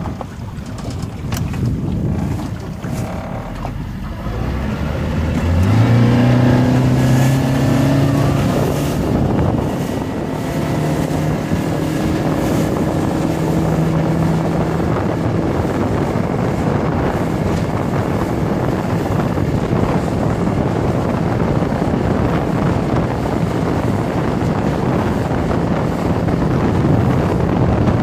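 Yamaha F50 four-stroke outboard motor throttled up about five seconds in, its pitch rising as the aluminium dinghy speeds up, then running steadily at speed. Rushing wind and water noise grows to cover most of the engine sound.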